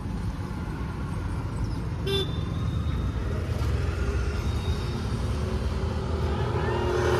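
Steady rumble of road traffic, growing a little louder toward the end, with one short car-horn toot about two seconds in.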